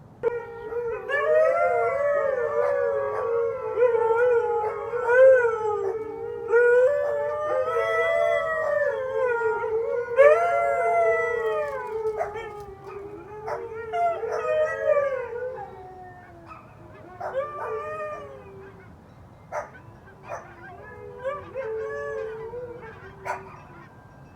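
Several huskies howling together, overlapping wavering howls at different pitches. The chorus starts suddenly, fades after about twelve seconds, and breaks up into short scattered calls near the end.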